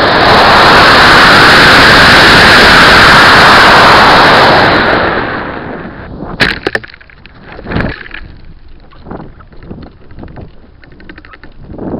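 Model rocket launch heard from a microphone riding on the Estes Mean Machine rocket: a loud rushing noise of the motor and air streaming past the airframe during the climb, lasting about five seconds before fading to gusty wind noise. A sharp pop comes about six and a half seconds in.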